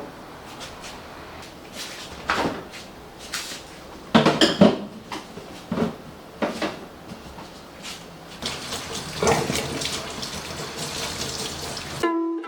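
Kitchen work: dishes, pots and utensils clinking and knocking several times, then water running from a tap for the last few seconds. Ukulele music comes in right at the end.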